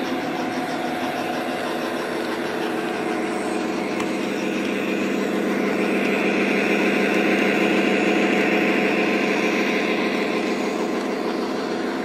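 Lionel O gauge SD60M model diesel locomotive running past with its diesel engine sound effect droning from its onboard speaker and its wheels rolling on three-rail track. The sound swells about halfway through as the locomotive passes close by, then eases off near the end.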